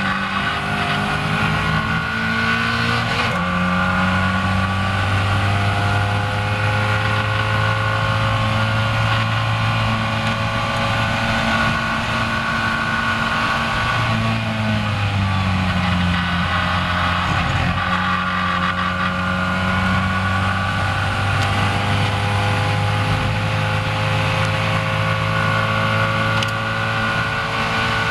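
Caterham Seven race car's engine at full throttle, heard from the open cockpit over wind and road rush. The engine note climbs steadily, steps down once a few seconds in at a gear change, dips again briefly about halfway, then climbs once more.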